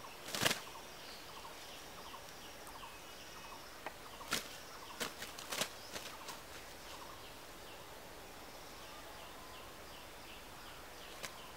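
Brief rustles and snaps of grass stems handled by hand, once about half a second in and three times between four and six seconds in. Behind them, short high chirps repeat about twice a second.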